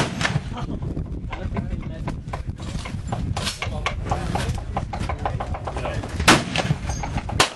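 Gunshots: a sharp loud report at the start and two more near the end, about a second apart, over a steady clutter of smaller shots and voices.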